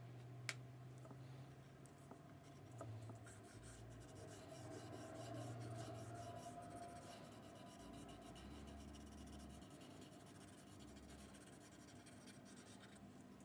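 Green wax crayon scribbling on paper in quick, faint, scratchy strokes, with a single sharp click about half a second in.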